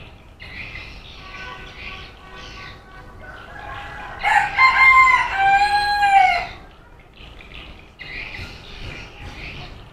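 A rooster crowing once, one long call of about two seconds in the middle, rising and then falling in pitch, with fainter chirping before and after.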